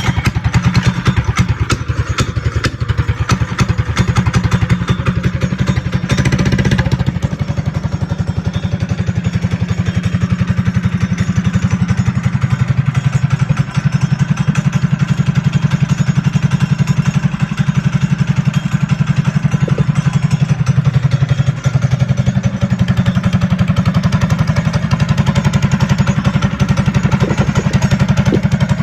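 Trailmaster Hurricane 200X mini bike's 196cc single-cylinder four-stroke engine, fitted with an aftermarket exhaust, starting up on the choke and running at a steady idle. The engine briefly picks up about six seconds in.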